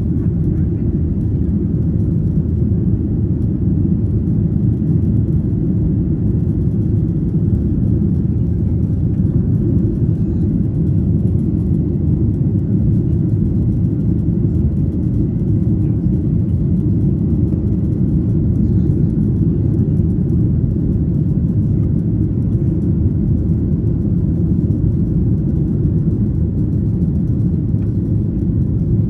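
Steady low rumble of an airliner cabin in flight: the jet engines and airflow heard from inside, even and unchanging.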